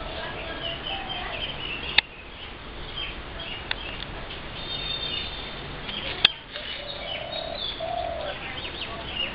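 Birds chirping and tweeting, with a dove cooing low, most plainly near the end. Two sharp clicks stand out, about two seconds in and about six seconds in.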